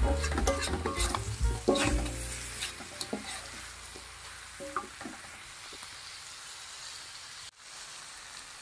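Spatula scraping and knocking against a metal wok while stir-frying a thick chili sambal, with sizzling under it. The stirring stops about three seconds in, leaving a steady faint sizzle with a couple of scrapes near five seconds.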